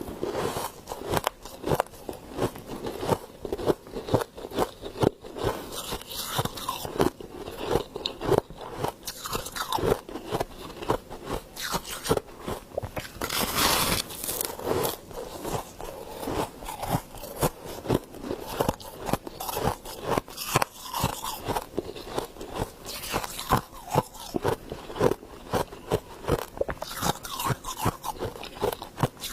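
A person biting and chewing crunchy frost ice close to the microphone: a rapid, uneven run of sharp crunches, several a second, with one longer, hissier crunch about halfway through.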